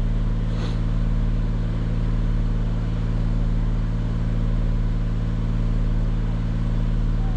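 Engine of an aerial lift truck idling steadily, a low even hum with a slight regular pulse.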